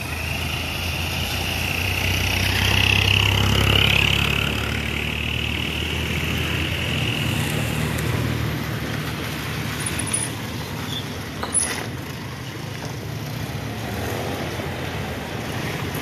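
Road traffic on a wet street: a lorry's engine draws close and is loudest about three to four seconds in, then fades as cars and motorbikes go by. Two short sharp knocks come a little past the middle.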